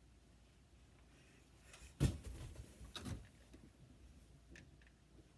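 Quiet room tone broken by two dull knocks about a second apart, the first louder, and a faint click near the end.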